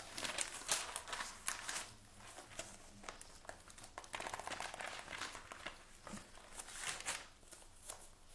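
Faint rustling and crinkling handling noise: a run of irregular soft scrapes and clicks as she moves about.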